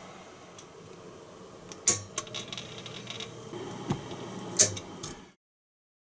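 Well-pump pressure switch snapping, heard as two sharp clacks about two and a half seconds apart with fainter clicks between, over a low background hum. This is the switch contacts cutting the pump in and out. The sound cuts off abruptly about five seconds in.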